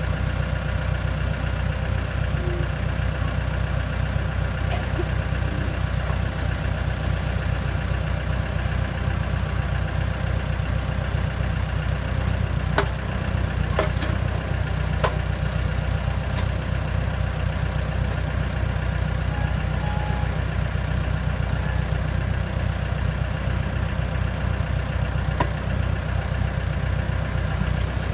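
Engine idling steadily, with a few light clicks about halfway through.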